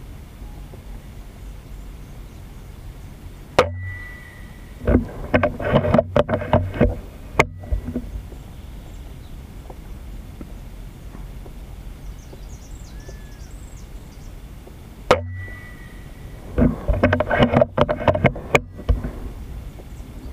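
FX Impact MK II 5.5 mm PCP air rifle firing two shots about eleven seconds apart. Each sharp report is followed a second or so later by a quick run of mechanical clicks and clacks as the side lever is cycled to chamber the next slug.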